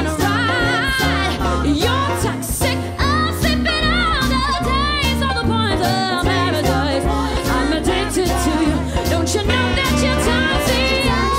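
Live band performing a song: singers over piano, upright bass, drums, saxophone and trumpet, with a walking bass line underneath.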